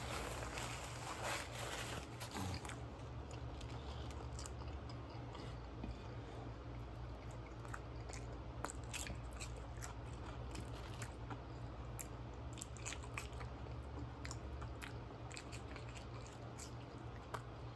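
Close-up chewing and biting of a toasted grilled cheese sandwich and seasoned sweet potato fries, with many short crunchy clicks scattered throughout. A steady low hum runs underneath.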